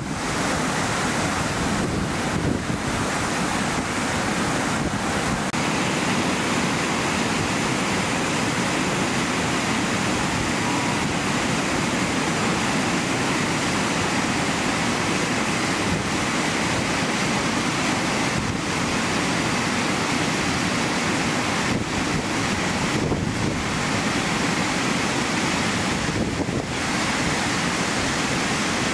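Steady rush of a mountain waterfall tumbling over rocks.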